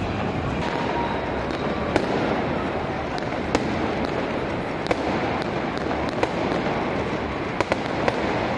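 Fireworks going off: scattered sharp bangs and cracks, about a dozen irregularly spaced, over steady crowd noise.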